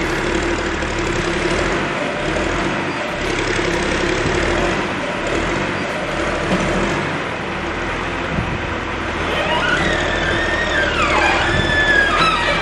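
John Deere 710 backhoe loader's diesel engine running steadily. About ten seconds in, high squealing tones join it, sliding down and back up in pitch for a few seconds.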